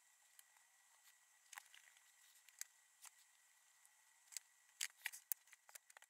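Faint scattered clicks and small handling noises of hands working with battery wiring, denser and louder in the last two seconds, over a faint steady hiss with a thin high tone.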